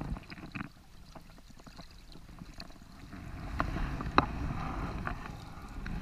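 Shallow river water sloshing and splashing around hands as a salmon is handled and lifted out of the water, with a few sharp knocks about four seconds in.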